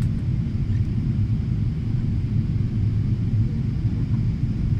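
Steady low rumble of a jet airliner's engines and airflow, heard inside the passenger cabin during the descent to land.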